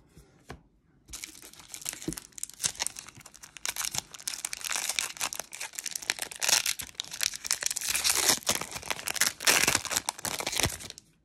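Foil trading-card pack wrapper being crinkled and torn open by hand: a dense run of crackles that starts about a second in, grows louder in the second half and stops just before the end.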